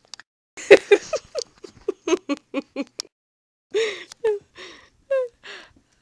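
A woman laughing: a quick run of short 'ha' pulses, then a few longer laughs that fall in pitch.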